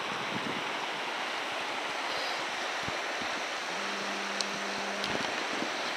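Steady rushing of a mountain river's current around kayaks on the water, with a few faint knocks and a brief low hum a little past the middle.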